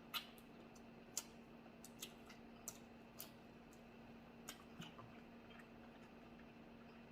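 Eating Dungeness crab from a seafood boil: about seven sharp cracks and clicks, mostly in the first five seconds, over a faint steady hum.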